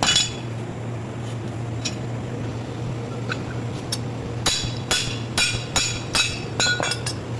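Metal pieces clinking and being tapped: one sharp knock at the start, then about seven ringing metallic clinks, roughly two a second, in the second half, over a steady low hum.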